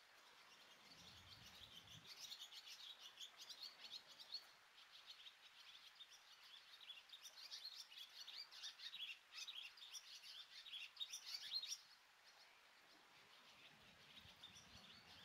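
A small bird chirping in rapid runs of quick, high chirps, starting about two seconds in, with a brief pause around four seconds, and stopping a few seconds before the end. Under it a faint, steady hiss of rain.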